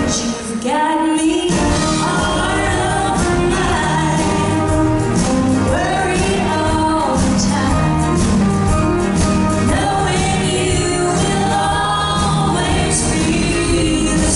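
A woman singing a song live at a microphone, backed by a band.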